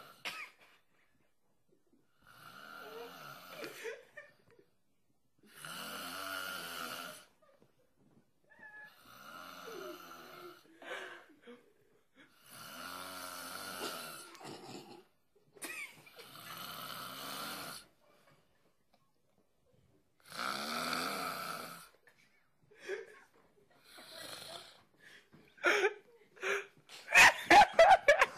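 A sleeping man snoring, one long snore every three to four seconds, six in all. Near the end there are several short, sharp, louder sounds.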